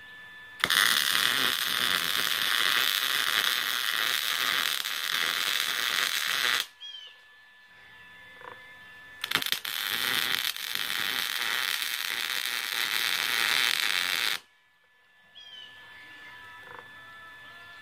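Arc welding on half-inch steel rebar: two runs of steady crackling hiss, each about five to six seconds, that start and stop abruptly, as the rebar stems are welded together.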